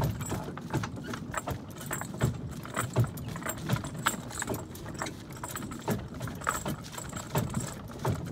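Heavy draft horse pulling a wooden shaft cart at a walk on a dirt track: irregular metallic jangling of the harness chains and clattering of the cart over a low rumble, with hoof falls mixed in.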